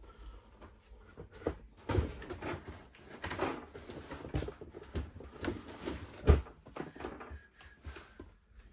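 Rummaging through boxes of toys: irregular rustling and knocking of items being handled and set down, with a louder thump about two seconds in and another a little past six seconds.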